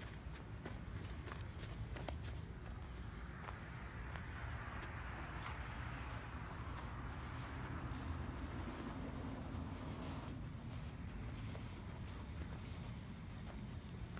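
Crickets chirping in a steady, fast pulse over a low rumble. A rushing noise swells from about three seconds in and cuts off suddenly about ten seconds in.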